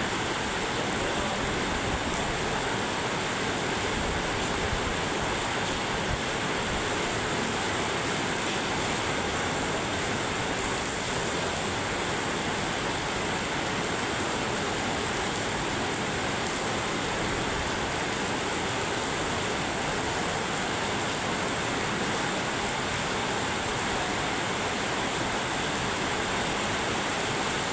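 Heavy downpour of a summer storm, a steady, even rush of rain without let-up.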